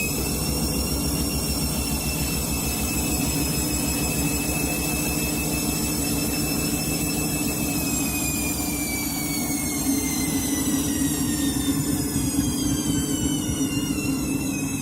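Washing machine in a 1200 rpm final spin: the motor and drum give a high whine with a low, fast-pulsing rumble beneath it. The whine holds steady at top speed, then slowly drops in pitch over the second half.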